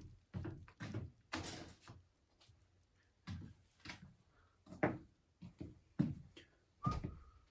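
Irregular knocks, clicks and bumps of a remote control being put away, with a cabinet door or drawer moving, and a brief squeak near the end.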